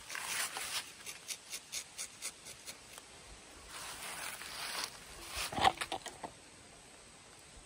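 Rubber-tapping knife shaving a thin strip of bark from a rubber tree's tapping cut: a run of short, quick scrapes, about four a second, then one longer scrape. A sharper clink about five and a half seconds in is the loudest sound.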